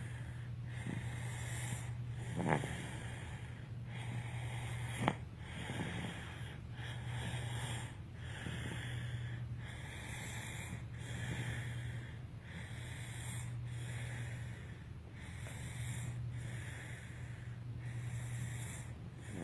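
A sleeper snoring, breath after breath in a steady rhythm, with two sharp snorts in the first five seconds, over a steady low hum.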